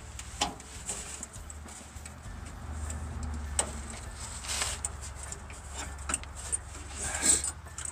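Hands working a steel fuel line and its quick-connect fitting at an inline fuel filter: scattered small clicks, taps and scrapes of metal and plastic parts, the loudest a little before the end, over a low steady hum.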